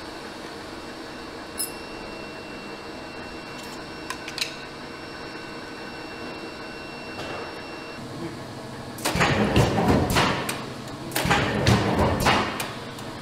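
A steady workshop hum with a few light clicks, then two bursts of loud metallic clattering and knocking, about nine and eleven seconds in, from a MAWI press and its sliding yellow mesh safety guard being worked.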